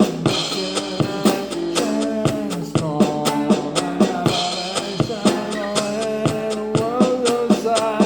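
Background music: a band with a drum kit keeping a steady beat under a pitched melody.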